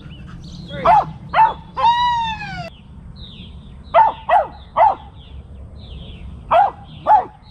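A dog barking in short, sharp barks in groups of two or three, with one longer yelp that falls in pitch about two seconds in.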